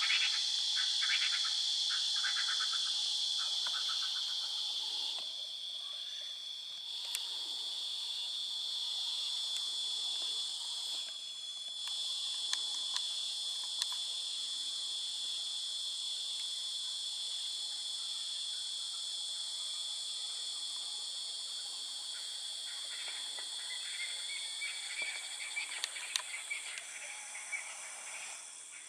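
Steady high-pitched chorus of crickets and other insects, with frogs calling over it in short pulsed trills in the first few seconds and in scattered clicks near the end.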